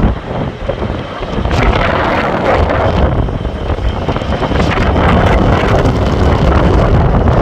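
Strong gusty wind buffeting the microphone, easing briefly about a second in and then blowing steadily again.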